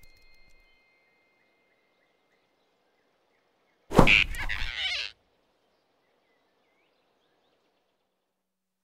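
A sudden loud impact sound effect from an animated film: a sharp knock with a rushing, swishing noise that lasts about a second and cuts off abruptly.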